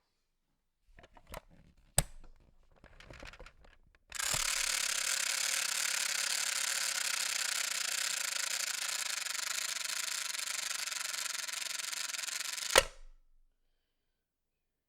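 Toy toaster being worked: a few light plastic clicks and one sharp click about two seconds in, then a steady rasping whir for about nine seconds that stops with a loud sharp click.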